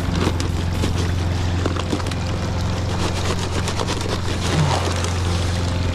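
A steel shovel scoops powdered cement out of a paper bag and dumps it into a wheelbarrow of sand, making repeated scrapes, taps and dry pouring. A steady low hum runs underneath.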